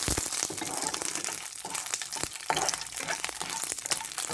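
Dried red chillies being lightly roasted in a little oil in a non-stick kadai and stirred with a spatula: faint sizzling with papery crackling and many small clicks and scrapes of the spatula and chillies on the pan.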